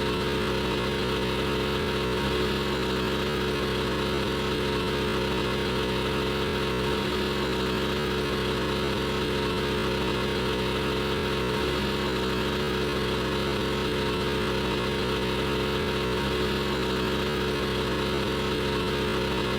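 Generator running at a steady speed: a constant hum with a few held tones over an even rushing noise, never changing pitch or level.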